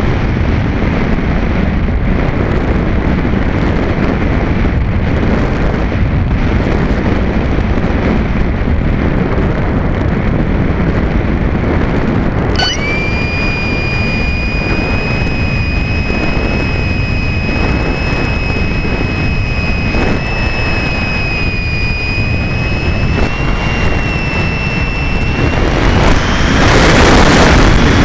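Air rushing over the onboard camera's microphone on a Multiplex Easystar electric glider in flight. About halfway through, the electric motor's steady high whine comes in and holds, and near the end the rush of air grows louder as the plane banks steeply.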